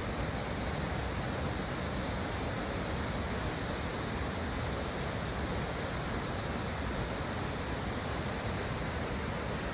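Rushing water making a steady, even noise with no breaks.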